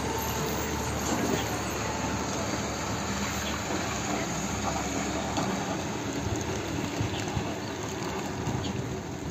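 Steady hiss of unseasonal rain with a low rumble, and a bus engine running as it drives past about four seconds in.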